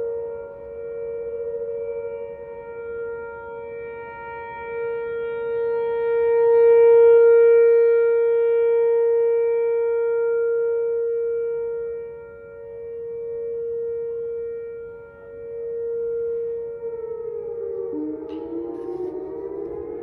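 Outdoor tornado warning siren sounding a steady single tone, swelling and fading in loudness several times. Near the end its pitch begins to slide and waver.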